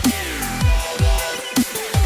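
Electronic dance music in a dubstep style playing loud, with deep bass notes that slide down in pitch and sharp drum hits on a steady beat.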